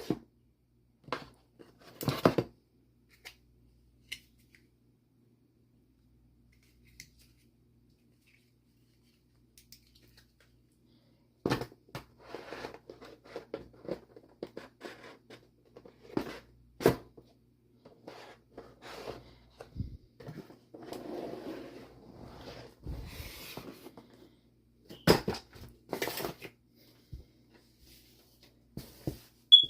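Laptop packaging being handled and opened: a few scattered light knocks and clicks, then, from about a third of the way in, a busy stretch of rustling, scraping and clicking with several sharper knocks.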